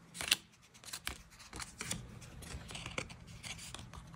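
Magic: The Gathering trading cards, some of them foil, being slid and flicked past one another in the hands: quiet papery rubbing with a few crisp clicks as cards snap free.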